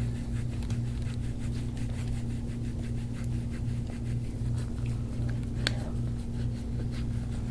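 Gua sha tool scraping back and forth over the skin of the upper back and shoulder, a soft rubbing scrape, over a steady low hum. One sharp click about five and a half seconds in.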